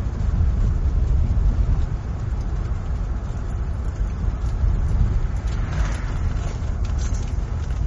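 A car driving along a road: steady low rumble of the engine and tyres on the road, with a brief swell of brighter hiss and a few light ticks about six seconds in.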